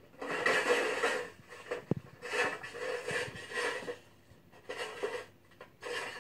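Rustling and rubbing noises in several separate bursts, each lasting up to about a second, with a single sharp knock about two seconds in.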